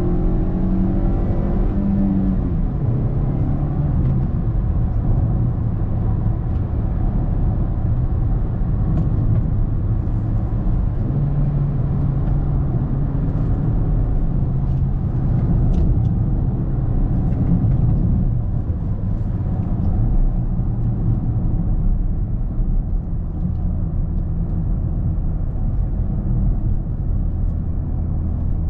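Toyota Corolla 1.6 Valvematic four-cylinder petrol engine and road noise heard from inside the cabin while driving. The engine note rises over the first two seconds and then drops, and stays a steady low running hum after that.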